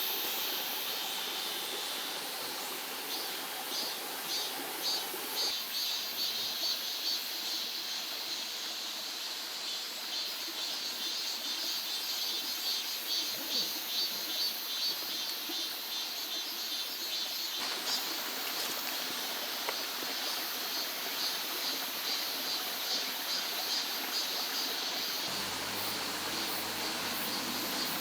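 Mountain valley stream running steadily over rocks, with a high, pulsing chirping over the rush of water.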